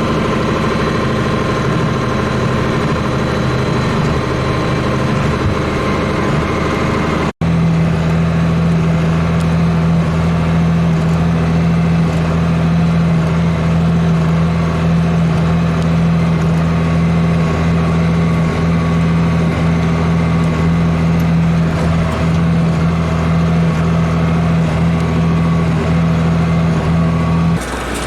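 Tractor engine running steadily while pulling a hay baler, a constant loud hum. It breaks off for an instant about seven seconds in, then resumes steady with a stronger low hum, and changes just before the end.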